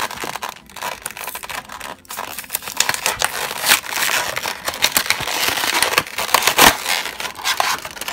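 Clear plastic blister packaging crinkling and crackling as its cardboard backing card is peeled and torn away, busiest and loudest in the second half.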